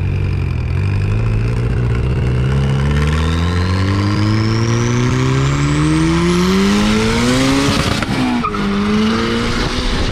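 Car engine accelerating hard in one gear, its pitch climbing steadily for about eight seconds, with a thin high whine rising along with it. Near the end it drops at a gear change and starts climbing again.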